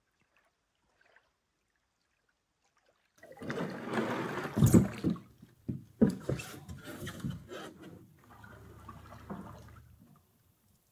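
Near silence for about three seconds. Then comes a canoe pushing off from a sandy shore: the hull scrapes and shifts with a few sharp knocks. It is followed by fainter paddle strokes splashing and dripping in calm water as the canoe moves away.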